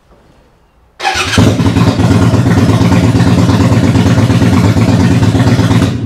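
Suzuki VL250 Intruder's 249 cc V-twin cranked on the electric starter about a second in, catching almost at once and then running steadily and loudly; it cuts off at the very end.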